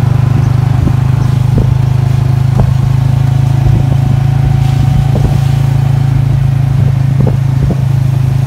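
Motorcycle engine of a Cambodian tuk-tuk running steadily as it tows the passenger carriage, heard from inside the carriage, with light rattles and knocks scattered through.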